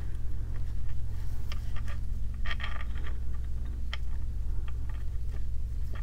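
Fingers rustling and lightly scraping as they tie a knot in waxed linen cord near the beads, with a few small clicks, over a steady low hum.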